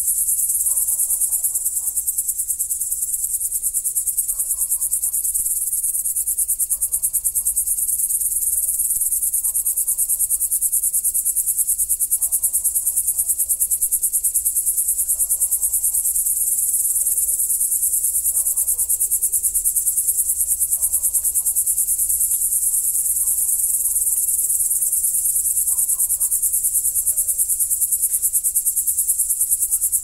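Crickets chirping: a dense, fast-pulsing, high-pitched trill that goes on steadily without a break.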